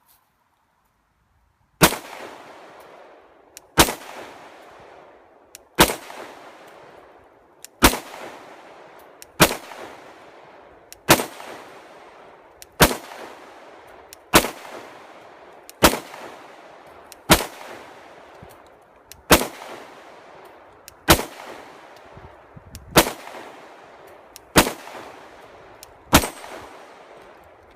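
Glock 19 9mm pistol firing about fifteen shots in slow, steady succession, roughly one every one and a half to two seconds, each report trailing off in an echo.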